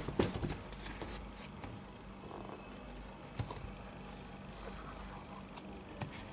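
Faint handling noise of a sneaker being moved and touched: a few soft knocks and rustles over a low steady hum, the clearest knocks at the very start and about three and a half seconds in.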